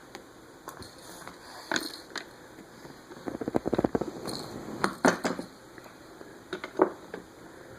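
Toys and a book being handled and rummaged: scattered knocks and clicks, with a quick flurry of ticks and rustles a little after three seconds in.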